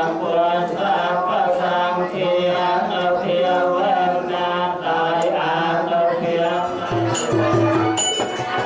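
Chanted singing with music behind it; about seven seconds in, a low beat with high, sharp strikes joins.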